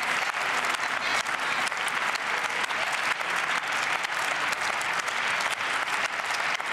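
Applause from a chamber of parliamentarians: many people clapping together in a steady, sustained round.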